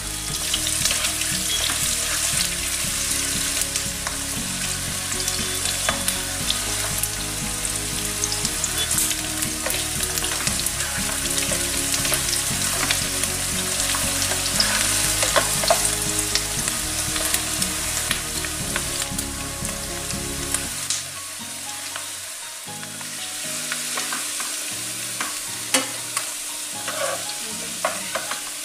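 Sliced onions frying in oil in a non-stick wok, sizzling steadily while a plastic spatula stirs and scrapes them, with scattered clicks of the spatula against the pan. The onions are being fried only until soft, not browned.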